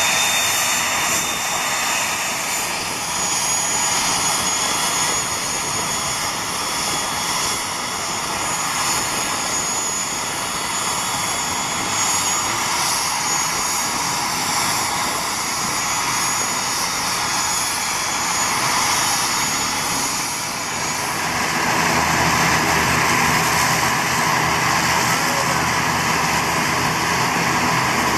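Twin turboprop engines of an ATR 72-600 airliner running on the ground, a steady high turbine whine over the noise of the turning propellers. About 21 seconds in the sound gets louder and a low, even propeller drone comes in.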